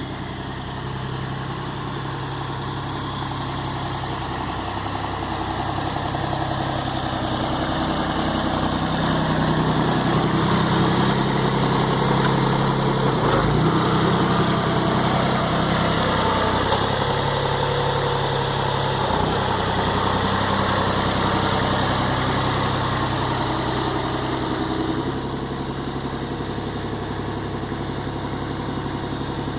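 An engine running steadily, picking up speed and getting louder for several seconds in the middle before settling back to a lower, steady speed.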